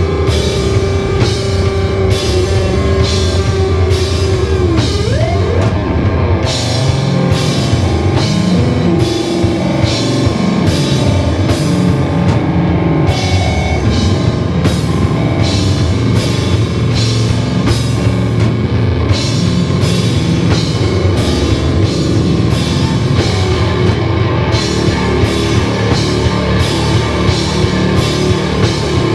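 Live rock band playing loud: electric guitars over a drum kit with a steady beat of drum and cymbal hits. A held guitar note bends and slides about five seconds in.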